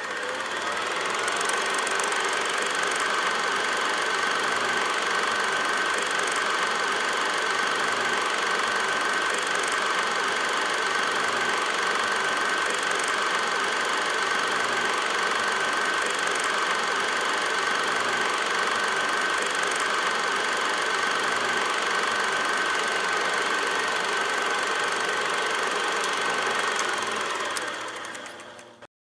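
Super 8 film projector running: a steady mechanical clatter under a constant high whine, building up over the first second or so and fading out near the end.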